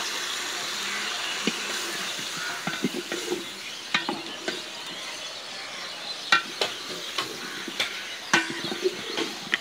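A wooden spatula stirs chopped jackfruit and potato in a metal cooking pot. It scrapes through the pieces and knocks against the pot's rim and side several times, over a steady hiss.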